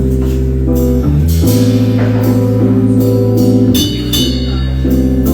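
Live band playing an instrumental passage: sustained bass and chord notes that change every second or so, with drums.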